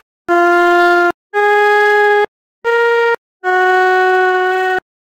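Flute playing a slow phrase of four held notes with short breaks between them, stepping up in pitch over three notes and dropping back on the last, longest one.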